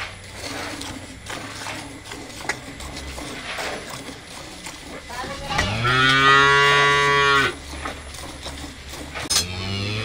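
Cattle mooing: one long moo of about two seconds a little over halfway through, and another starting near the end. Before the moos, faint rhythmic squirts of milk hit a steel pail as a cow is milked by hand.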